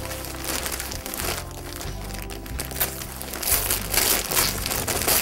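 Wrapping paper crinkling and tearing as a present is unwrapped by hand, the crackling growing louder and busier in the second half, over background music.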